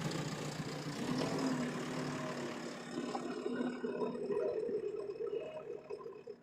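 JCB backhoe loader's diesel engine running faintly and steadily, fading out near the end.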